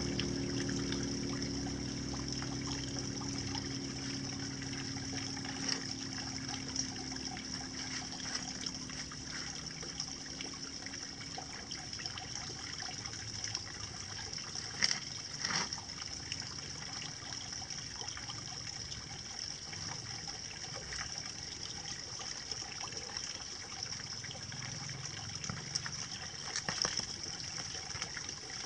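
Steady trickle of shallow water running over wet concrete. A low engine hum fades away in the first few seconds, and a few faint knocks come about halfway through.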